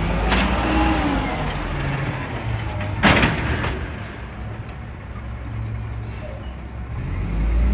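Volvo WX64 garbage truck's diesel engine running, with a short hiss of released air about three seconds in, and the engine growing louder near the end.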